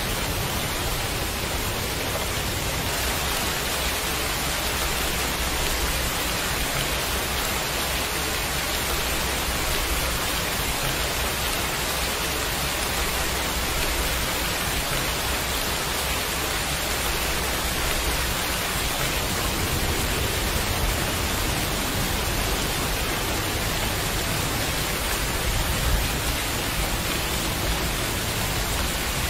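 Heavy rain falling, a steady, even hiss with no letup.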